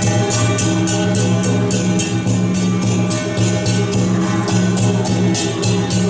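Music with metallic percussion, cymbal-like crashes at a steady beat of about three a second, over sustained steady tones.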